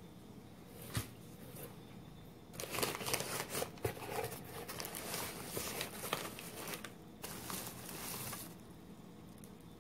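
Newspaper wrapping and packing material crinkling and rustling as wrapped plants are handled in a cardboard shipping box: a long dense stretch from a few seconds in, then a shorter one near the end, with a single sharp tap about a second in.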